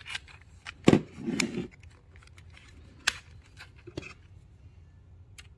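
Scattered sharp plastic clicks and knocks as a scooter's key switch housing is handled and fitted onto the handlebar tube. The loudest knock comes about a second in, with a short rustle after it, and another sharp click near three seconds.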